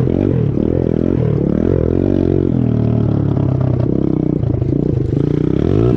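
Small Chinese pit bike's single-cylinder four-stroke engine being ridden, revving up and down several times, its pitch falling away sharply near the end.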